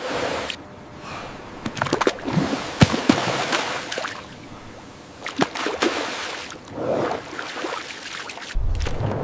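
Water sloshing and splashing, with scattered sharp clicks and knocks, and a low rumble coming in near the end.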